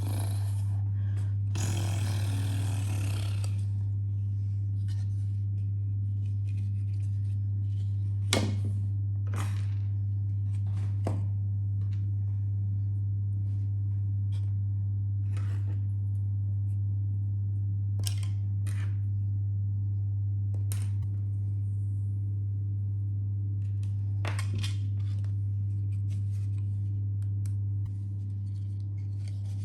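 A steady low hum with light clicks and snaps scattered through it, and a brief rushing noise in the first few seconds.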